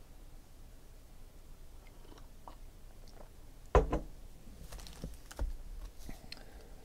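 Quiet room tone, then a single sharp thump about halfway through, followed by light clicks and rustles as foil-wrapped trading card packs are picked up off a table.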